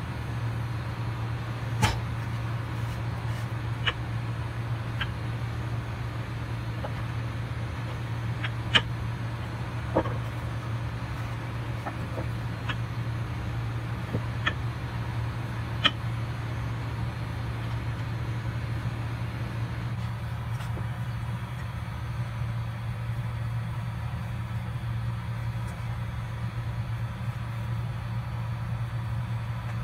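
Wooden rolling pin rolling out dough on a wooden pastry board, with a few sharp knocks of the pin against the board during the first half, over a steady low hum.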